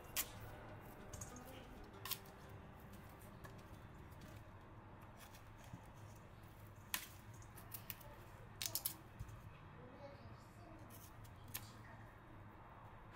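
A few light clicks and taps, scattered and a few seconds apart, over a low steady hum; a small cluster falls about two-thirds of the way through.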